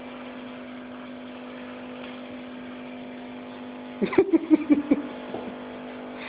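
Steady electrical hum, and about four seconds in a rapid run of about seven short, loud bursts from a person's voice lasting about a second.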